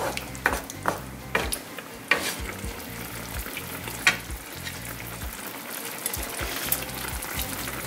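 Chicken pieces sizzling and simmering in a thin sweet-and-sour sauce in a nonstick skillet, stirred with a wooden spoon. A spoon knocks against the pan a few sharp times in the first half and once more about four seconds in.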